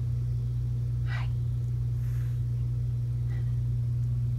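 A steady low hum, with a short soft breathy sound about a second in.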